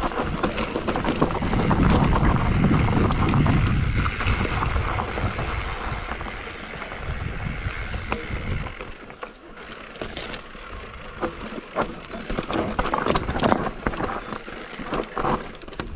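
Wind rushing over the microphone and tyres rumbling over a dirt trail while riding fast, loud for about the first eight seconds. After that the riding gets quieter, with frequent sharp knocks and rattles of the bike over rough ground.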